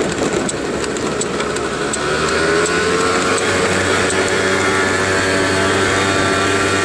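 Motor scooter engine running while riding, first under a rush of wind and road noise; about two seconds in its note rises and then holds steady.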